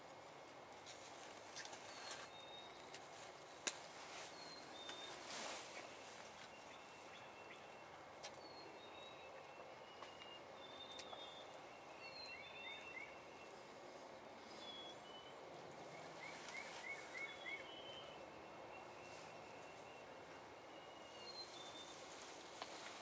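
Faint outdoor ambience with songbirds chirping: scattered short, high chirps and quick trills. There is a single sharp tick about four seconds in.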